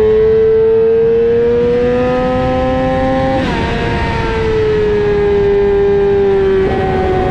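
Sport motorcycle engine at high revs on track, heard from on board: the note climbs for about three seconds, drops sharply about halfway through, then falls away slowly, with another change near the end.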